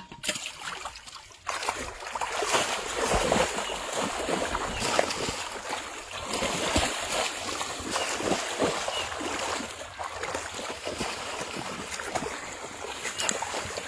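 Shallow water splashing and sloshing continuously as two people wade quickly through it, kicking up spray. It starts lighter and becomes a steady, dense splashing from about a second and a half in.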